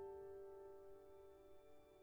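Quiet background music: a held keyboard chord slowly dying away, with no new note struck.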